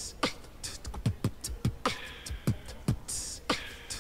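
Beatboxing: a steady groove of mouth-made kick drums that drop in pitch, with short hi-hat ticks and longer snare hisses between them.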